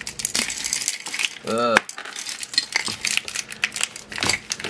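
Jumbled costume jewelry rattling and clinking in a glass jar as fingers rummage through it, with many small sharp clicks of metal and beads against each other and the glass.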